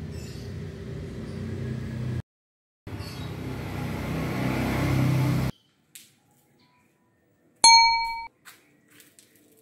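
A single bright ding, struck once and ringing with several clear tones for about half a second near the end. It is an editing chime that marks a caption. Before it comes a stretch of unclear noise that cuts out abruptly twice.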